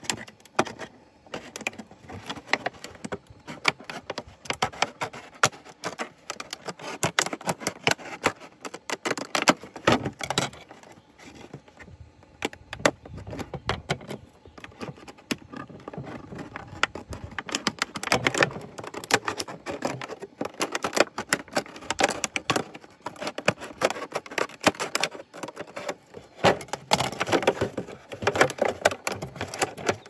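Scissors cutting through the thin, soft wall of a 6-litre plastic bottle: an irregular run of small snips and crackles as the plastic is cut and flexed in the hand.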